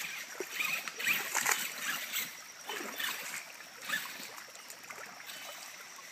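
Shallow rocky creek trickling, with irregular splashes and knocks of steps moving through the water and over stones, busiest in the middle of the stretch.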